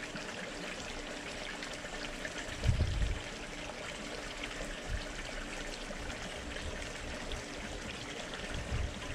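Water pouring steadily from a PVC pipe into a small fish pond, with a few dull low thumps, the loudest about three seconds in.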